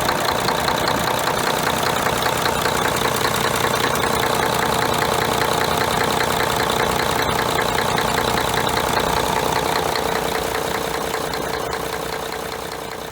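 Mercedes-Benz OM501LA V6 turbo-diesel idling with a rhythmic knock, the sign of broken piston rings in the No.2 cylinder, which also cause blow-by. The sound fades away near the end.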